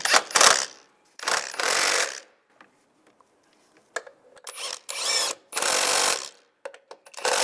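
Cordless impact wrench tightening engine-mount bolts in several short bursts of under a second each, with pauses between, as the bolts are run down and snugged in turn.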